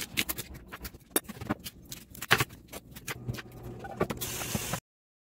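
Kitchen knife cutting peeled sweet potatoes on a wooden cutting board: a string of irregular knocks and taps, followed about four seconds in by a brief hiss.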